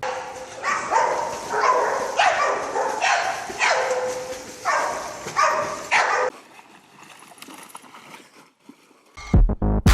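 A dog barking and yelping, about seven loud calls that bend in pitch over some six seconds, then dying down. Music with a strong beat comes in near the end.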